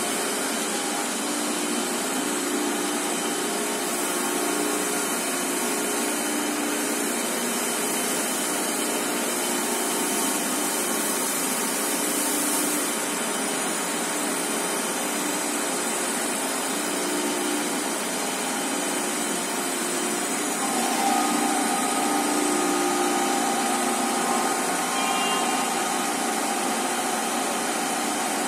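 High-speed tissue paper slitting machine running: a steady machine hiss with a few held tones. About three-quarters of the way through it gets slightly louder and a new steady tone joins in.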